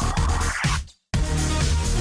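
Electronic dance music with a steady beat; a rising sweep cuts to a brief silence about a second in, then the beat drops back in.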